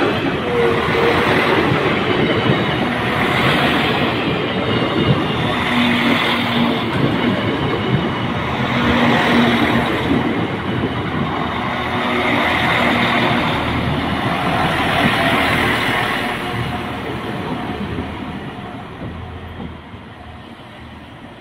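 An NIR Class 4000 diesel multiple unit passes close by at low speed: loud, steady running of its underfloor engines, with wheels on rail and a little clickety-clack. The sound fades over the last few seconds as the train draws away into the station.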